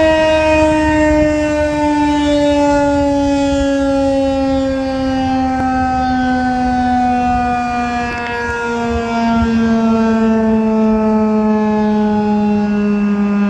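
Federal Signal 2001-130 outdoor warning siren winding down, its single tone falling slowly and steadily in pitch as the rotor coasts after the attack signal ends.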